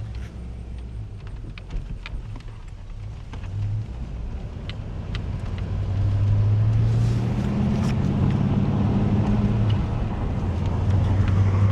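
Ford Mustang 5.0 V8 engine running as the car drives, a steady low drone that gets louder about six seconds in, with a few faint clicks over it.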